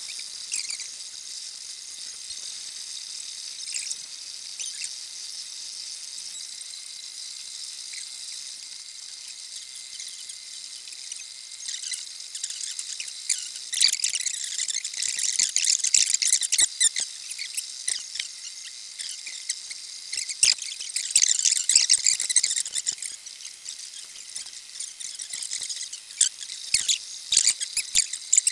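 MakerBot Replicator 2 3D printer at work, its stepper motors and extruder giving high-pitched chirping and squealing over a faint steady whine. The chirping grows busier and louder about halfway through.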